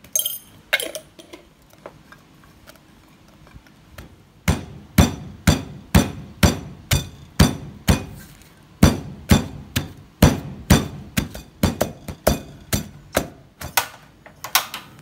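Wooden pestle pounding spice paste and garlic in a wooden mortar: a few light knocks near the start, then a steady run of strikes, about two a second, from about four seconds in.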